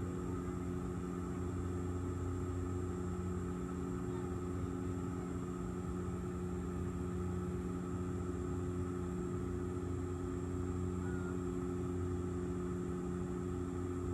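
Steady cabin noise of an airliner in flight: an even engine drone with a constant low hum and airflow hiss that does not change.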